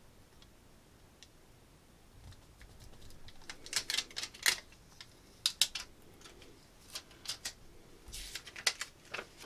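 Fingers handling small vinyl decal pieces on a cutting mat. A light rustle about two seconds in gives way to scattered sharp clicks and taps in small clusters.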